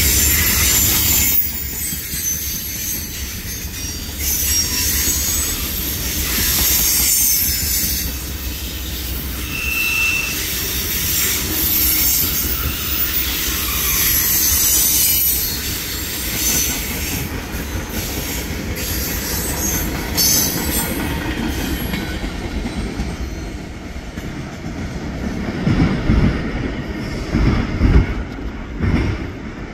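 Coal train's hopper cars rolling past close by, steel wheels squealing and clicking over the rail joints above a low rumble. After about twenty seconds the high squeal fades, leaving a lower rumble with a few heavy low thumps near the end.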